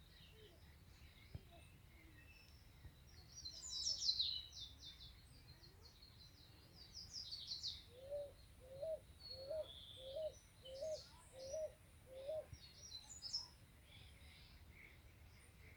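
Rural birdsong: small birds sing quick, high twittering phrases, and midway another bird gives a run of seven short, low, evenly spaced calls, over a faint steady background rumble.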